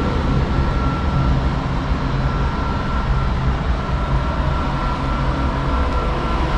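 Semi truck's diesel engine running steadily with an even low hum, a thin steady high whine over it.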